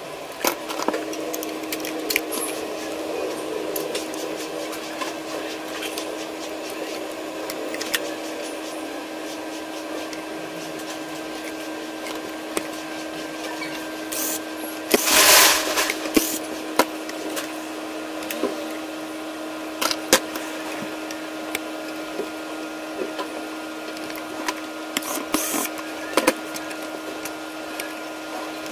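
Scattered clicks and knocks of a Panasonic UX90 camcorder's plastic body and parts being handled and taken apart on a bench, over a steady hum. About halfway through there is one loud rushing burst lasting about a second.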